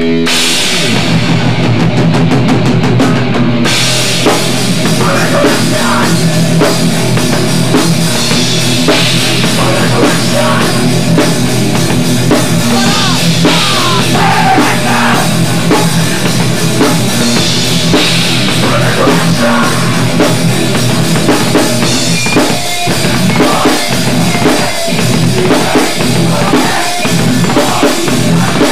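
Heavy hardcore rock music: distorted electric guitars and bass over a pounding drum kit, kicking off with a fast run of drum hits.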